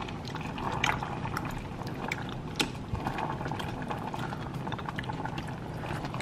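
Noodle broth boiling and bubbling in a stainless steel pot as wooden chopsticks stir and break up the instant noodles, with scattered light clicks and taps.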